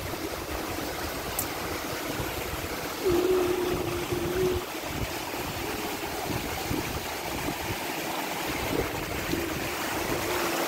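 Wind buffeting the microphone in a steady rush, with a faint held tone rising out of it briefly about three seconds in and again near the end.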